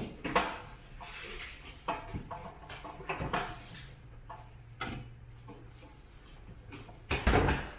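Scattered knocks and clunks from tools and building material being handled during drywall work, with a louder clatter near the end.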